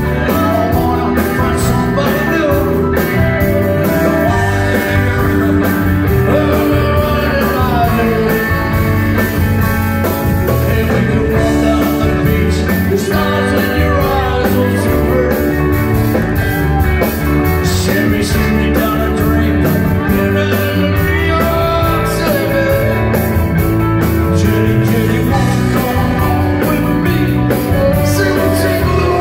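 Live rock band playing: electric guitars and lead vocals over a steady beat, heard from the audience.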